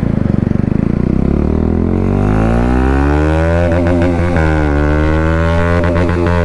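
Bajaj Pulsar NS200's single-cylinder engine through an aftermarket Akrapovic exhaust, accelerating hard from the start of a run. Its pitch climbs steadily for about four seconds, dips briefly at a gear change, then climbs again.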